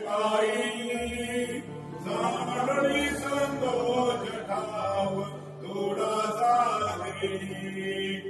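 An aarti, a Hindu devotional hymn, being sung as a chanted melody in phrases, with some stretches over a low held tone.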